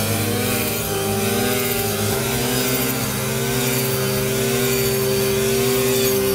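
Small four-stroke engine of a walk-behind paddy reaper running steadily, its pitch shifting slightly a couple of times.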